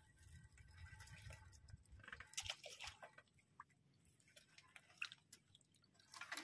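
Faint rustling and crackling of a wet nylon gill net being hauled in and handled by hand, with scattered soft clicks, a little busier about two to three seconds in.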